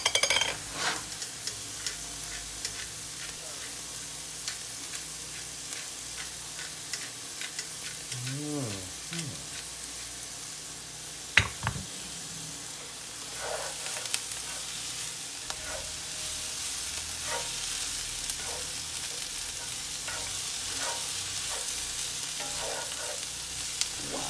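Sliced mushrooms and onions sizzling in a cast-iron skillet, a steady hiss with scattered light clicks. A single sharp knock about eleven seconds in is the loudest sound, and the sizzle grows a little louder in the second half.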